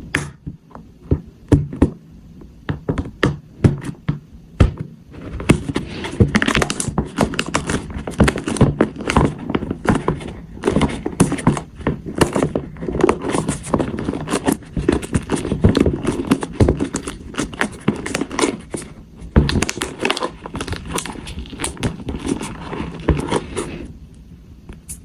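Hands handling a plastic toy and its packaging: a few separate knocks and taps, then about five seconds in a long busy stretch of scraping, crinkling and tapping that stops shortly before the end.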